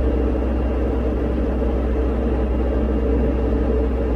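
Diamond DA40 light aircraft's piston engine and propeller droning steadily, heard from inside the cabin, with the power just pulled back on the landing approach.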